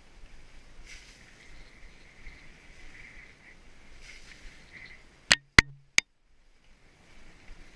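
Mountain bike riding down a wet woodland singletrack, heard from a helmet-mounted camera: a steady rolling hiss and rattle with a faint high buzz. About five seconds in come three sharp knocks in quick succession, the loudest sounds, followed by about a second of near silence.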